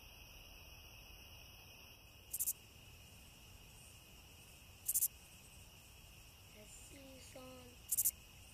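Three short, high chirps about two and a half seconds apart, typical of an insect such as a cricket, over faint steady background noise.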